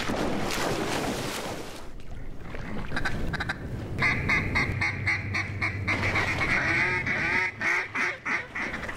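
Water splashing for the first two seconds, then, from about three seconds in, a mallard duck call blown in a long, fast run of quacks.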